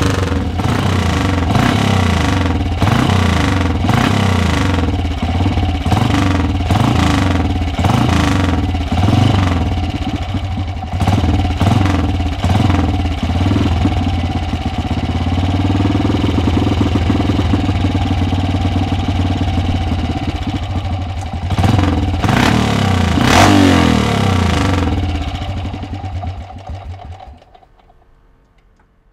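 Single-cylinder four-stroke ESO motorcycle engine running and being blipped, the revs rising and dropping about once a second, then holding steadier before two sharp revs, and fading out near the end.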